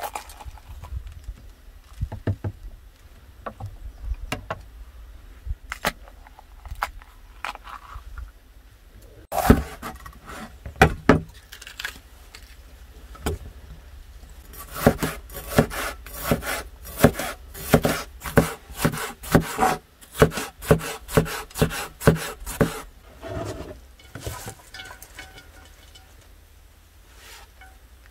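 Knife chopping bell peppers on a wooden cutting board: scattered knocks at first, then a long run of quick, regular chops, about two to three a second, through the middle, dying away to small handling sounds near the end.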